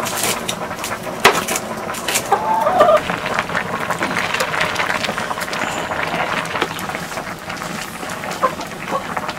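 Domestic chickens clucking in a few short calls, over scattered sharp knocks and clatter.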